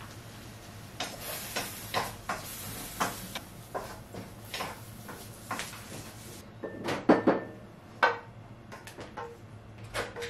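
Small dog eating dry kibble from a ceramic bowl: irregular clicks and clatters of kibble against the bowl, with a few louder knocks about seven and eight seconds in.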